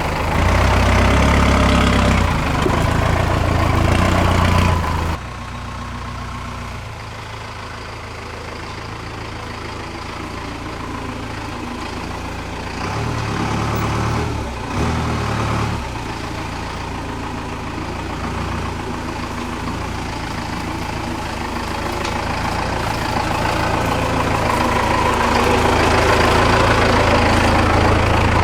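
A Ford F-150's swapped-in Cummins 4BT four-cylinder diesel engine running as the truck drives on a dirt track. It drops quieter about five seconds in and builds louder again toward the end.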